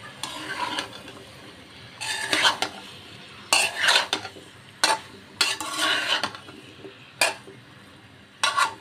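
A metal spatula scraping across a kadai as it stirs cubed raw papaya and potato through spice paste, in a series of irregular strokes about a second apart. This is the start of the kosha stage, when the vegetables are fried in the masala.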